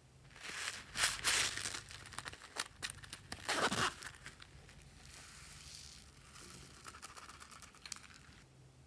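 Small blue foam beads in a plastic box being handled, with loud crinkly rattling bursts. Then a softer, steady hissing patter for about three seconds as the beads pour out onto slime.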